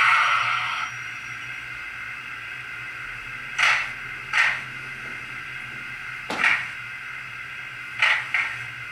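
Sound decoder in a Hornby model of the Southern 'Lord Nelson' steam locomotive playing the standing-engine sounds of the preserved Lord Nelson through its small round speaker. A loud steam hiss cuts off about a second in, and then a low steady hiss is broken by five short, sharp puffs of steam.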